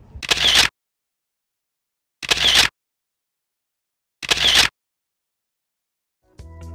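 Three identical short noise bursts about two seconds apart, an edited-in sound effect, with dead silence between them. Music begins near the end.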